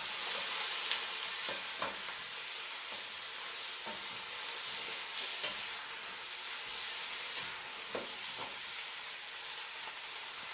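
Onions, carrots and bell peppers sizzling as they fry in a pan, with a spoon stirring and scraping against it a few times.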